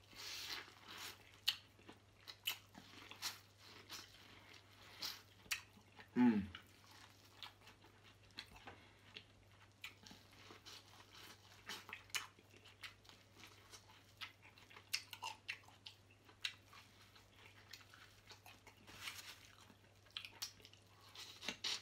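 Close-miked biting and chewing of a piece of corn on the cob, with scattered crunches and wet mouth clicks. A short falling 'mm' comes about six seconds in.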